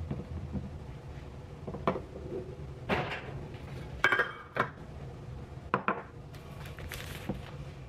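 Cartons, eggs, a small glass bottle and a metal cupcake tin being set down one after another on a kitchen countertop: a series of separate light knocks and clinks, with the tin knocking down about four seconds in.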